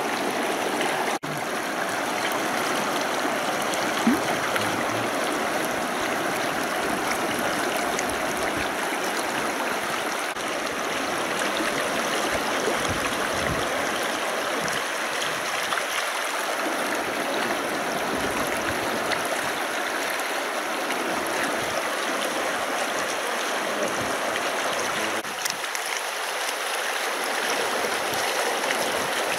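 A fast taiga river running, a steady rush of water with no let-up, briefly cutting out about a second in.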